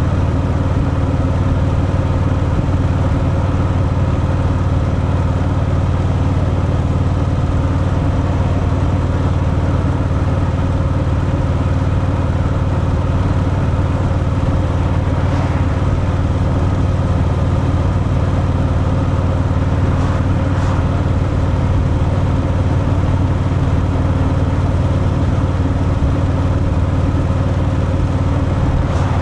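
Harley-Davidson Fat Boy's V-twin engine running steadily through its stock exhaust, holding an even pitch with no revving.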